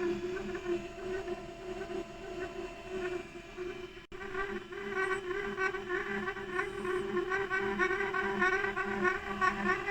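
HP colour laser printer running with its toner cartridges squeaking and chattering: a pitched squeal pulsing several times a second, with a brief break about four seconds in. The fault lies in the cartridge's drive gear and coupling for the developer roller when the two cartridge halves are clamped together, and the repairer cures it by greasing. Heard as a mobile-phone recording.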